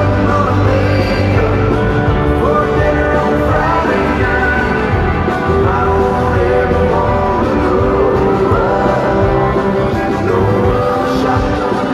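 Live country-rock band playing with a male lead singer, loud and steady throughout.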